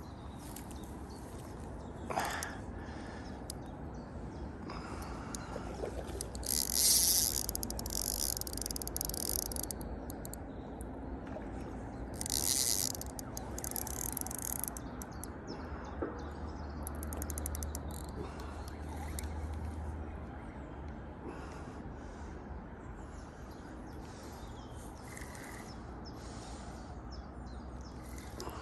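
Outdoor ambience by a lake: steady background noise with a few faint bird chirps, two brief rushing hisses about seven and twelve seconds in, and a low hum for a few seconds past the middle.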